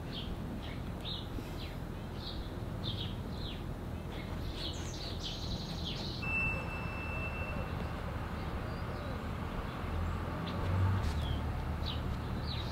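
Wild birds chirping: short, falling high chirps repeated every half second or so, then a single long whistled note about six seconds in. Under them runs a low rumble that swells about ten seconds in.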